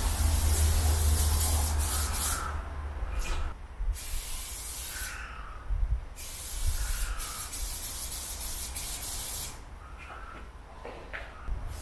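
Aerosol spray paint can spraying red fill: three long hisses with short quick bursts between them and a few short ones near the end.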